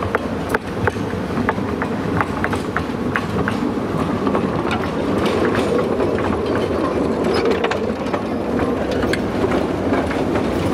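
Narrow-gauge train of open wooden passenger wagons rolling slowly past close by: a steady rumble with an irregular run of sharp wheel clicks and rattles, about one or two a second.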